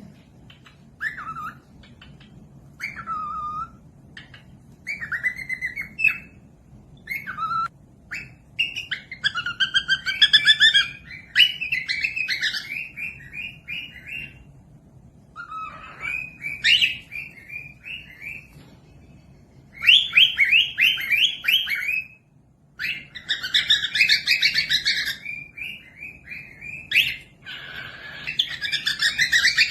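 A small parrot calling: short whistled chirps that bend up and down, breaking into fast chattering runs of notes in several bouts.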